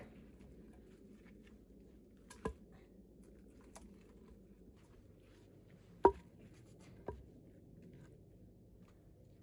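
Three short, sharp knocks, the middle one loudest, over a faint steady low background noise.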